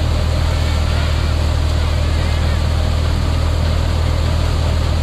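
Electric paddy thresher running steadily, a constant low hum from its motor under the rushing noise of the threshing drum.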